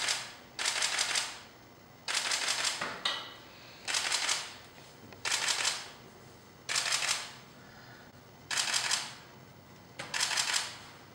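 Digital SLR camera shutter firing in short rapid bursts of several frames, about one burst every one and a half seconds, seven times.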